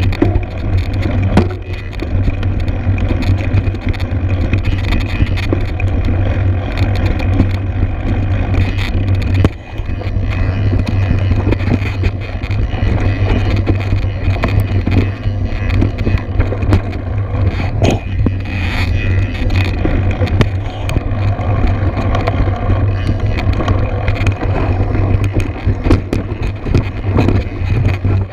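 Mountain bike riding over a rocky trail, heard from a camera mounted on the bike: steady low wind noise on the microphone, with frequent clatter and scraping of the knobby tyres and frame over stones.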